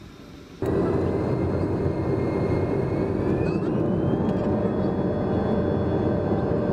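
Airbus A320-family jetliner's turbofan engines heard from inside the cabin: a loud rumble that cuts in suddenly about half a second in, with a thin whine that rises in pitch a few seconds later as the engines spool up on the runway.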